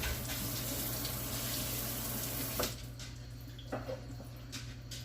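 Kitchen sink tap running, water splashing over a chuck roast as the seasoning is rinsed off; the water stops abruptly a little over halfway through. A few light knocks follow.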